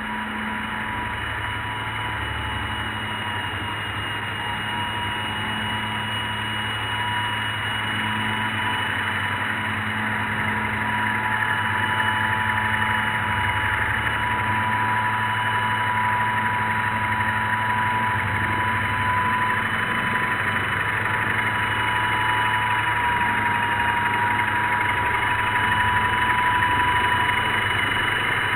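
Steady whine and hum of the RC ERA C138 helicopter's small electric motors and spinning rotors, with two fixed tones over a hiss, slowly getting louder.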